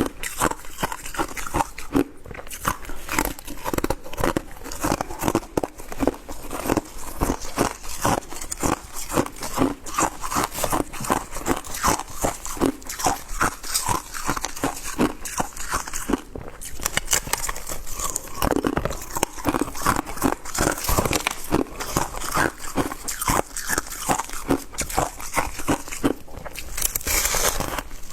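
Shaved ice being chewed close to the microphone: a continuous run of rapid, crisp crunches.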